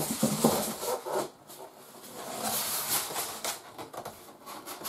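Polystyrene foam packing insert being handled and lifted out of a cardboard box: scratchy rubbing and rustling of foam against foam and cardboard, louder in a couple of spells.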